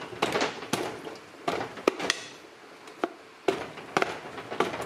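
A pry bar levering at the engine side cover of a 1975 Honda MR50, with a string of irregular sharp clicks and knocks as the tight cover starts to shift off its dowel pins.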